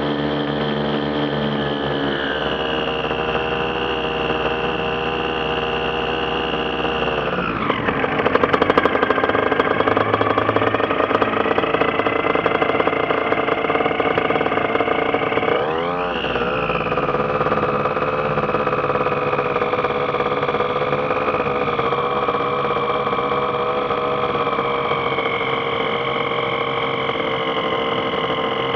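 The engine of a TrueLite ultralight aircraft, running steadily. Its pitch drops sharply about eight seconds in and the sound grows louder, then it dips and comes back up briefly about halfway through and again near the end.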